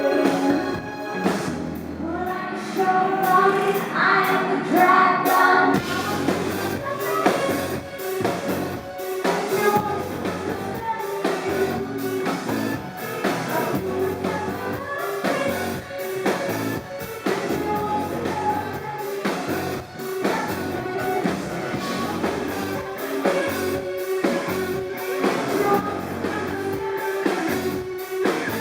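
Live electro-rock band performance with sung vocals over drum kit, synth and guitar, recorded from the crowd on a camera microphone that captures it poorly.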